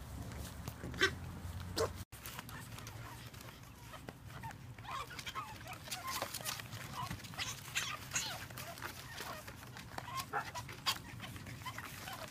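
Pug puppies yipping and whimpering in short, high squeaks, with two louder yips in the first two seconds and many softer ones later.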